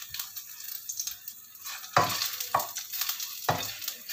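Ginger slices frying in a little oil with sweet soy sauce in a nonstick pan, sizzling steadily. A metal spatula scrapes across the pan a few times, the loudest scrape about two seconds in.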